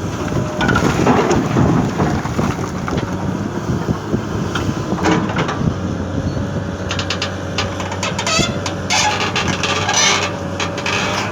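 Komatsu 220 excavator's diesel engine running under load, with a rumbling rush of dumped soil and repeated clanks and rattles. A steady hydraulic whine joins in about halfway through.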